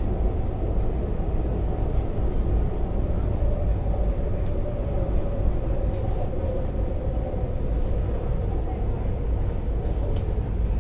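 Interior running noise of an MTR Tuen Ma line IKK-train: a steady low wheel-and-rail rumble with a faint whine that drifts slightly lower in pitch as the train runs into a station.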